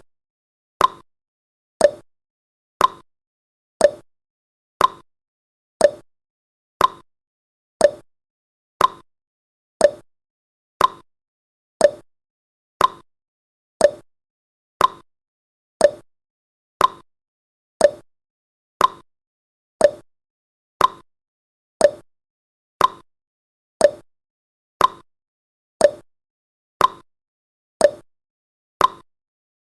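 Countdown timer's ticking sound effect: one short, sharp tick every second, evenly spaced.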